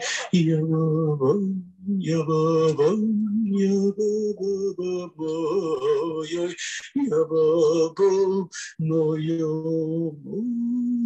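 Voices singing a wordless nigun together, a melody carried on syllables, phrase after phrase with short breaths between.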